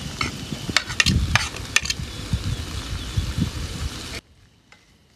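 A pan of pork curry with corn and potatoes sizzling on a small portable stove, with several sharp clinks and knocks as vegetables from a plate go into the pan. It cuts off suddenly about four seconds in.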